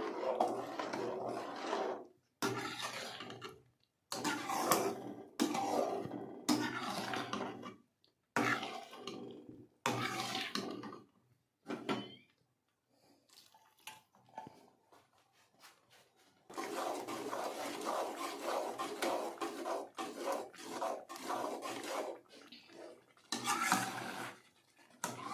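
Metal spoon stirring and scraping thick semolina halwa in a kadhai, heard in short stretches broken by abrupt gaps, with one longer stretch of stirring near the end.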